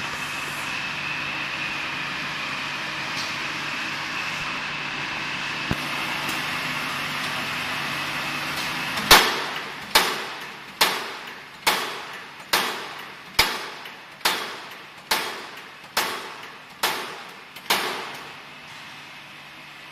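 Hydraulic pipe hole-punching machine: its power unit runs with a steady hum and a high whine, then about halfway through the punch strikes the round steel tube eleven times at an even pace, a little under a second apart, each stroke a sharp metallic bang that rings briefly as a hole is pierced.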